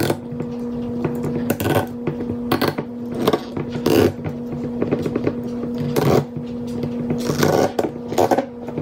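Corkscrew working a cork out of a wine bottle: a series of short squeaks and scrapes of cork against the glass neck, about one a second, over a steady low hum.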